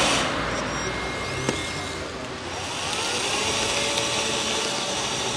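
Radio-controlled scale tracked loader's electric motors and hydraulic pump whining as it digs into a dirt pile and raises a full bucket. The whine rises and falls in pitch as the bucket lifts.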